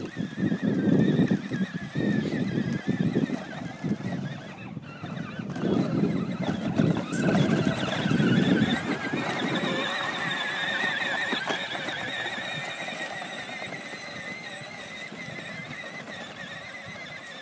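Power Wheels John Deere Gator ride-on toy driving over dirt, its electric motors and gearbox giving a steady wavering whine. Bursts of low rumble come and go through the first half, then only the whine remains.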